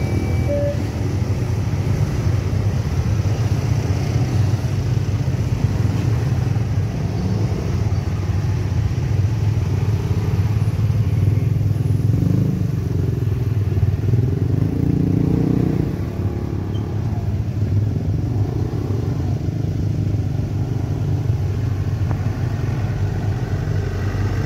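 Road traffic, mostly motorbikes with a truck, crossing a railway level crossing: a steady engine rumble, with a heavier vehicle passing about 12 to 16 seconds in. The crossing's electronic warning sounder cuts off right at the start.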